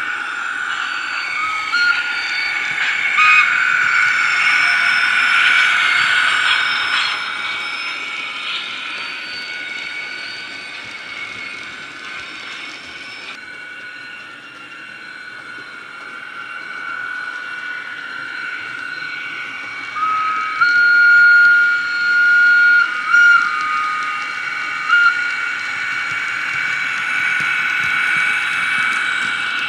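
Sound decoder in a model ES1 electric locomotive playing through its small speaker: a steady electric hum, with simulated wheel flange squeal coming in as high squealing tones that step in pitch, once about two seconds in and again, louder, for several seconds past the middle.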